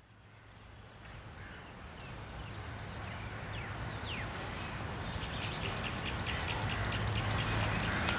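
Trackside outdoor sound fading in from silence: birds chirping over a steady background hiss and low rumble. In the second half a bird repeats a short call about four times a second.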